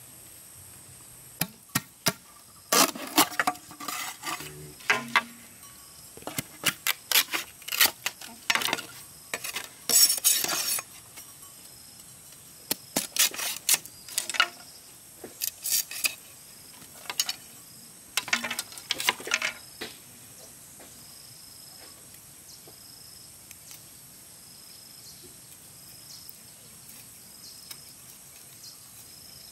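Irregular sharp clinks and knocks of hard objects striking each other, in several flurries over the first twenty seconds or so. After that only an insect's short high chirps, about once a second, over a steady hiss.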